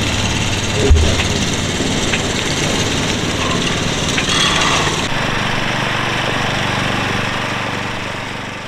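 Engine running steadily, with a short low thump about a second in. About five seconds in the sound changes to a long-tail mud motor on a duck boat, a small engine running steadily, which fades away near the end.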